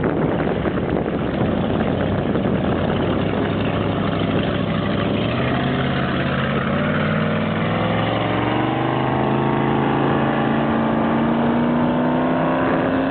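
Carrera SS8M 27-foot powerboat's engine running as the boat moves off, its pitch climbing steadily from about halfway through as it accelerates away. Wind buffets the microphone during the first few seconds.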